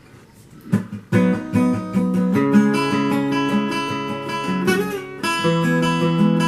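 Acoustic guitar strummed, playing a song's instrumental intro. A few light strokes about a second in lead into ringing chords that change twice.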